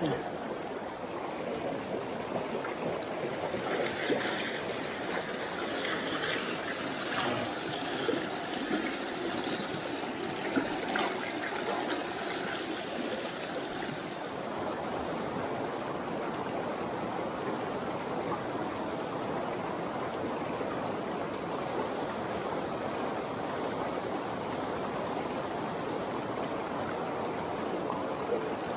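Small mountain stream rushing over rocks, a steady water noise throughout. In the first half, a few short knocks and clicks sound close by over the rush of the water.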